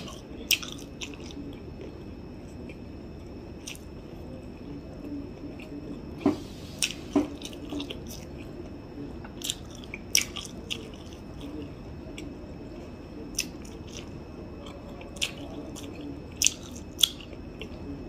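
A person chewing a mouthful of boiled sweet corn, with wet mouth clicks now and then.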